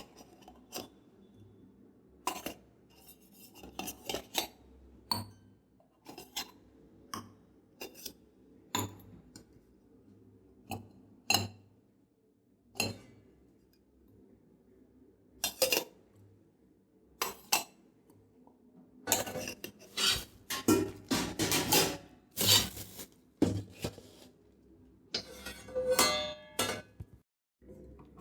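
Metal kitchen vessels clattering and clinking as they are handled during washing: single knocks spaced a second or two apart, then a dense run of clatter a little past the middle, and a vessel ringing briefly near the end.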